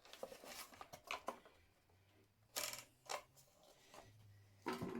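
Faint clicks and scrapes of hand tools working at a wood screw that won't come out, with one sharper scrape about two and a half seconds in.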